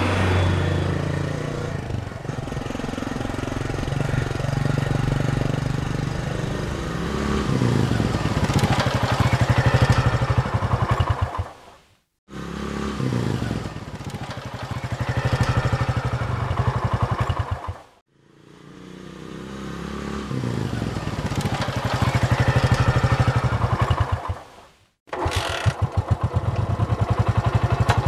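Motorcycle engine in several separate recordings, cut apart by three short silent gaps. The first runs and builds louder before fading. The next two each swell up and die away. The last starts abruptly and runs steadily.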